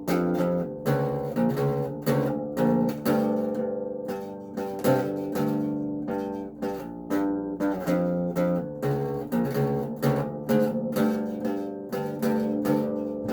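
Acoustic bass guitar being plucked, a steady run of ringing notes a few times a second.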